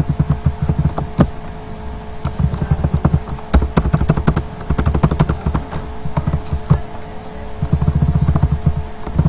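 Computer keyboard typing in quick runs of keystrokes with short pauses between them, over a faint steady hum.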